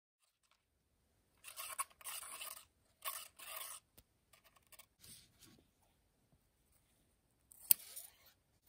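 Scissors cutting: two short runs of snips through soft mosquito netting in the first half, then one sharp snip near the end.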